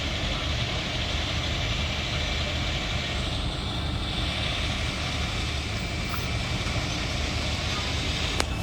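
Heavy vehicle engine idling steadily, with one sharp click near the end.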